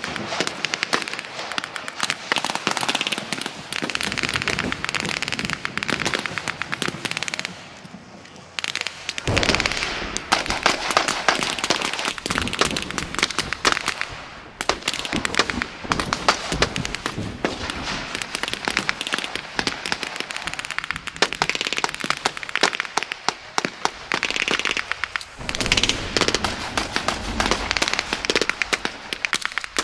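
Dense, continuous small-arms fire of blank rounds from many guns, shots overlapping rapidly in a crackling stream; it thins briefly about eight seconds in, then picks up again.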